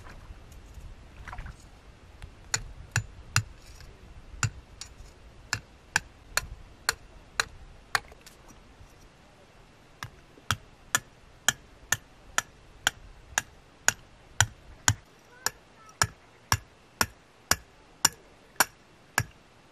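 A thin stake being tapped down into the pebbly shallows of a riverbank, making sharp knocks. The knocks come unevenly at first, pause briefly, then settle into a steady beat of about two a second.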